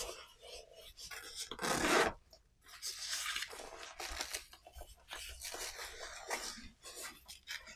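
Velcro flap on a nylon padded lens case being pulled open with rasping rips, the loudest about two seconds in, followed by the nylon fabric rubbing as the case is handled.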